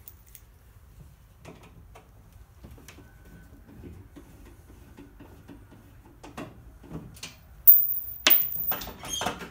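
A screwdriver backing screws out of a steel breaker-panel cover: faint scattered ticks and clicks of the tool on the screws, then, about eight seconds in, a louder shrill scrape and clatter against the cover.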